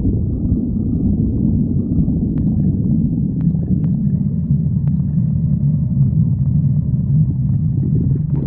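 Human stomach growling: a continuous low rumble that goes on without a break, with a few faint clicks in the middle.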